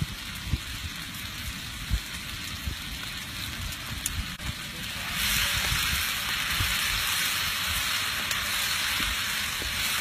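Mutton frying with a steady sizzle that turns louder about five seconds in.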